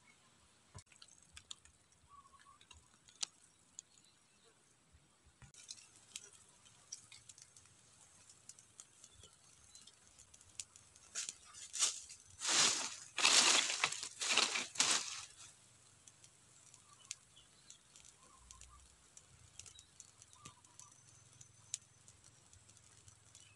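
Dry twigs and leaves rustling and crackling as a small stick campfire is lit and tended, with a quick run of louder rustles about halfway through and sparse faint ticks throughout.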